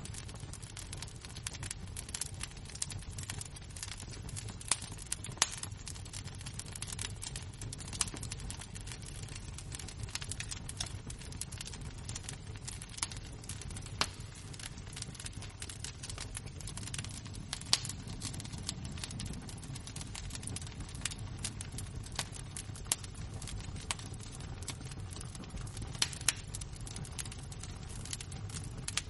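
Burning embers crackling, with irregular sharp pops, a few louder ones scattered through, over a low steady rumble.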